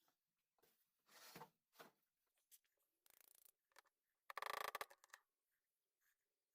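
Faint clicks and short scrapes of metal hand tools being handled, the loudest a brief rasping rattle about four and a half seconds in.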